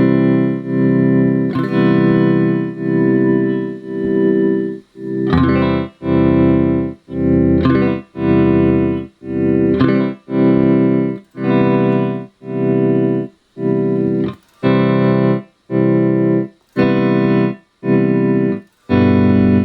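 Electric guitar chord through a Merak Tremolo Boost tremolo pedal at slow speed, its volume pulsing about once a second. The pulses start as smooth swells and, from about five seconds in, chop hard on and off as the waveform is turned from triangle toward square wave.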